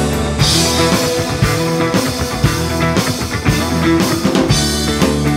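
Live rock band playing an instrumental passage: drum kit and electric guitars.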